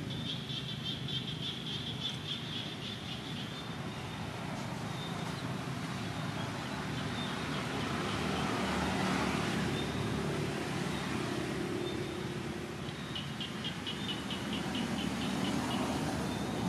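Steady outdoor background noise, with a rapid, high-pitched pulsing call near the start and again near the end.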